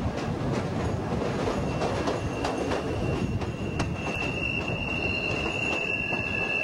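Elevated rapid-transit train running on the track, with its wheels clicking over rail joints. About a second and a half in, a high, steady wheel squeal starts faintly and grows much louder from about four seconds in.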